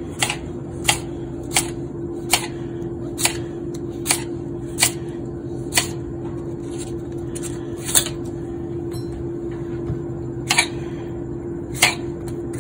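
Knife slicing a cucumber thin on a cutting board: sharp taps of the blade striking the board, at first about one every three quarters of a second, then more sparsely after about six seconds in. A steady low hum runs underneath.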